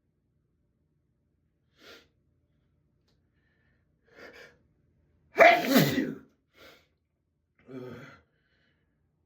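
A person sneezing once, loudly, about five and a half seconds in, one of a run of sneezes in a sneezing fit. Short quieter breaths come before and after it.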